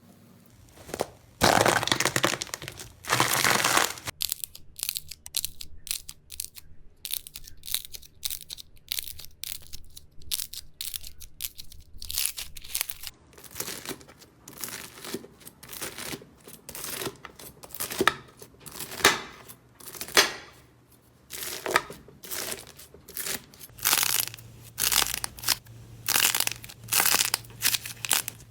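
Slime being pressed and worked by hand, with dense crackling for a few seconds near the start, then a long run of irregular small pops and clicks.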